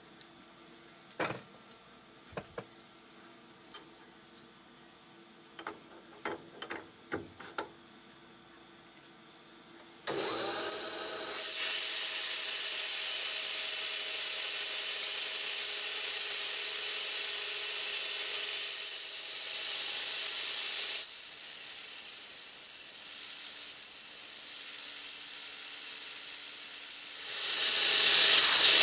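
Sharp metal clicks and knocks as a workpiece is handled in a benchtop metal lathe's chuck. About a third of the way in, a steady hiss with a hum starts: the 9x20 lathe running with its mist coolant spraying. It grows louder near the end.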